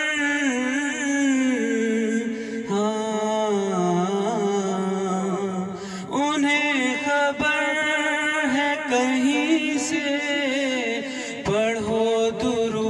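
A man singing a devotional Urdu naat into a microphone, drawing out long, wavering notes in a few sustained phrases.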